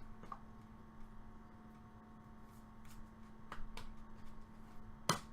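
Steady electrical hum with a few soft clicks from trading cards being handled, the loudest click near the end.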